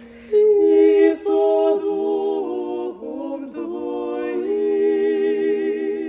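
Three women's voices singing an Orthodox church hymn a cappella in close harmony. A lower voice is already holding a note, and the others come in together about a third of a second in. They hold chords with a slight vibrato and change chord a few times.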